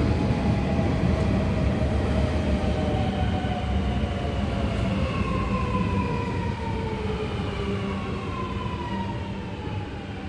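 Alstom Metropolis electric metro train running past, its traction motors whining in several tones that glide steadily down in pitch over a low rumble that slowly fades.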